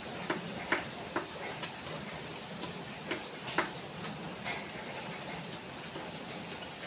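Steady rain falling, with irregular sharp ticks of heavier drops striking a hard surface, several close together in the first second and a couple more near the middle.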